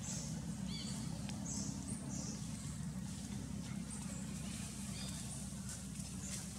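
Outdoor background: a steady low hum under scattered short, high chirps, with a brief squeaky call about a second in and another about five seconds in.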